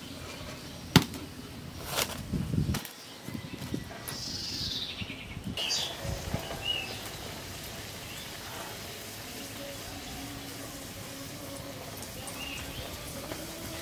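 Outdoor ambience with birds calling: a falling chirp near the middle and a few short chirps later. A sharp knock about a second in is the loudest sound, with a couple of softer knocks a second or two after it.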